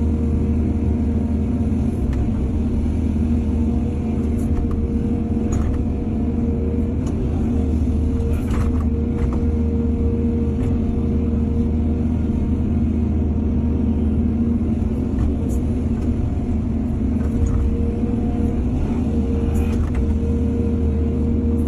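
Excavator's diesel engine running steadily under load, with a constant whine over the rumble and a few light knocks.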